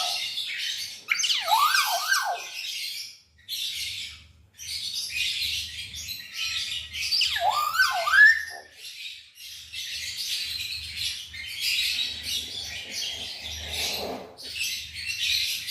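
Common hill myna calling: two bursts of loud whistles that drop sharply in pitch, about a second and a half in and again near eight seconds, over dense high-pitched chirping and chatter.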